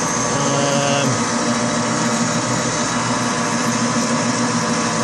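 Metal lathe running steadily as the cutter turns the steel workpiece under flood coolant: an even machine hum with several steady tones and a hiss over the top.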